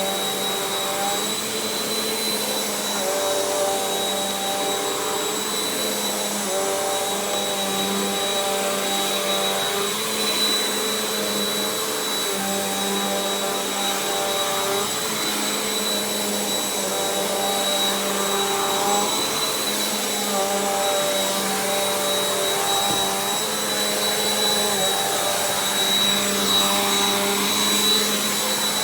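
Bissell PowerForce Compact vacuum cleaner running steadily with a high motor whine, its tone wavering every couple of seconds as it vacuums.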